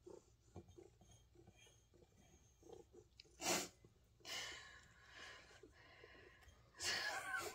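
Cats lapping catnip tea from a stainless-steel bowl, a faint run of soft ticks. About three and a half seconds in there is one sharp burst of breath, followed by two longer breathy huffs near the middle and near the end.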